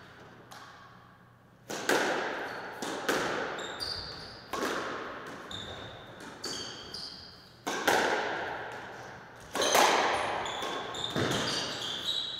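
Squash rally: the hard rubber ball cracks off the rackets and the front and side walls every second or two, each hit ringing in the court, with rubber-soled shoes squeaking on the wooden floor in between.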